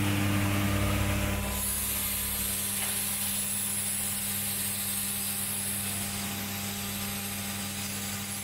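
Automatic micro pump assembly machine running with a steady low hum. About a second and a half in, a faint high hiss starts, and the deepest rumble fades away soon after.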